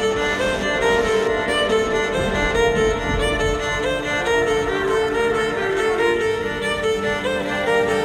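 Background music led by bowed strings such as violin, with a steady pulse underneath.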